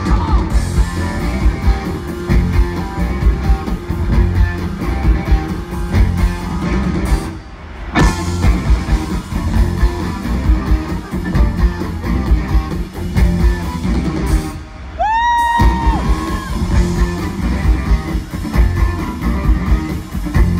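Live rock band playing, led by an electric guitar over bass and drums. The band briefly drops out twice: once before a full hit about eight seconds in, and again near two-thirds through, where a lone note slides up and holds before the band crashes back in.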